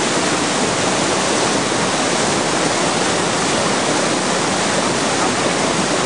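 Waterfall pouring into a pool: a loud, steady rush of falling water.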